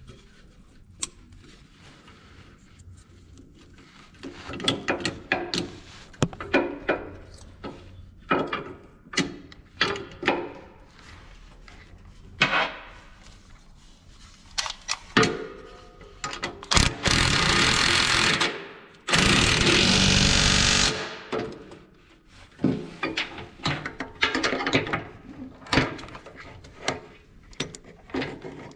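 Clicks and knocks of metal parts and a wiring connector being handled. Then two bursts, each about two seconds long, of a cordless Milwaukee drill-driver running as it drives in the sensor bracket's bolt.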